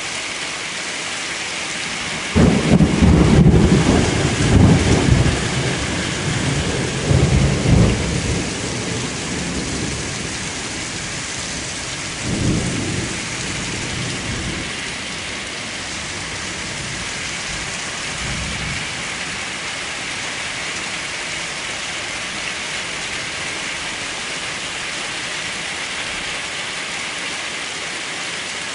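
Steady rain falling throughout. About two seconds in, thunder breaks in with a loud low rumble lasting several seconds, then rolls on in weaker swells, once more a few seconds later and faintly again later on.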